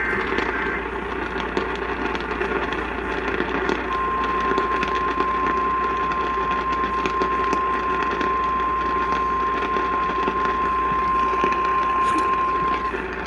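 Static-laden radio reception of an emergency alert. EAS header data tones end within the first second. About four seconds in, the single steady 1050 Hz NOAA Weather Radio warning tone starts and holds for about nine seconds, under constant hiss and crackle.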